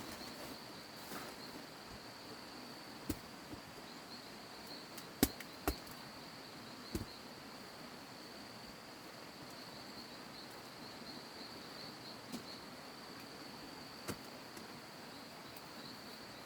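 Insects chirring steadily at a high pitch in a fine pulsing trill, with a few sharp clicks over it, the loudest two about five seconds in.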